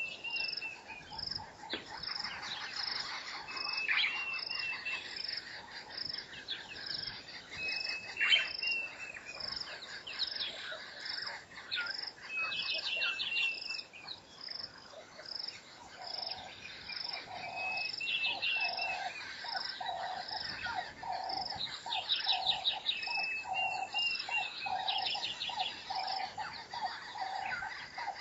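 Bushveld chorus of birds and insects: a high chirp repeating steadily about one and a half times a second, with short whistled bird calls every few seconds and a few quick trills. From about halfway in, a lower note joins, repeating at a similar pace.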